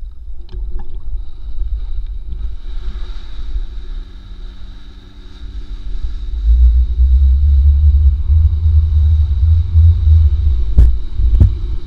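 Tow boat's engine running steadily and pulling harder, then a heavy low rush of wind and water past a pole-mounted action camera held just above the lake as the rider is towed up onto the wakeboard. Two sharp knocks or splashes near the end.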